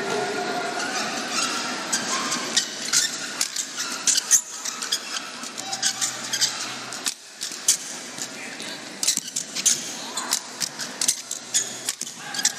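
Badminton rally: repeated sharp racket hits on the shuttlecock and brief squeaks of court shoes, over a steady murmur of voices from the hall.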